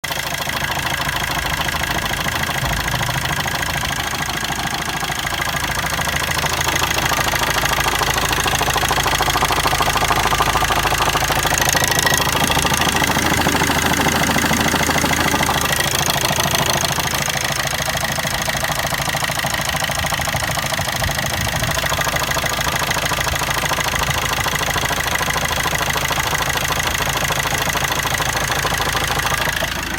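Corsa 1.3 diesel four-cylinder engine idling, with an unusual rhythmic knock that the owner places low down in the engine; the engine has done 170,000 miles.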